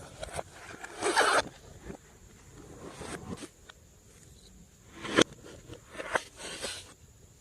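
Slime being mixed, with sticky squishing and crackling in irregular bursts, the loudest about a second in and a sharp one past the middle.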